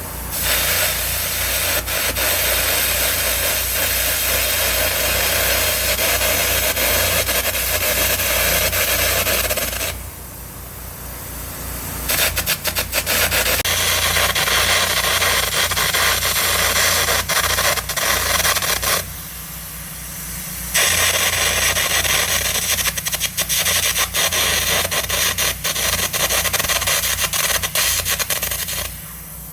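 Air carbon arc gouging with 3/16-inch carbon at about 250 amps: a loud hiss of the compressed-air jet with a crackling arc, in three long runs broken by two short pauses, about ten and nineteen seconds in. An engine runs steadily underneath throughout.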